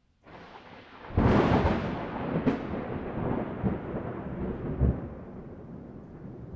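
Thunder close overhead: a rising hiss, then a loud crack about a second in and a second sharp crack a second later, followed by a long rolling rumble that slowly fades.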